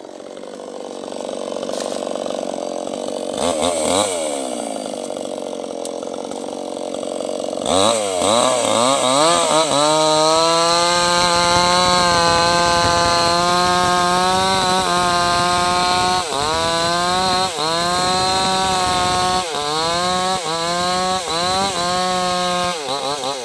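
Two-stroke chainsaw cutting a mango tree. It runs at low revs with a brief blip of the throttle in the first few seconds, then goes to full throttle about eight seconds in and holds there. Its pitch dips briefly several times near the end, then drops as the throttle is released.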